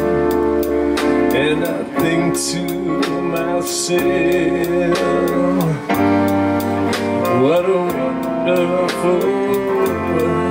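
Band music with guitar, a held melody line and a steady drum beat.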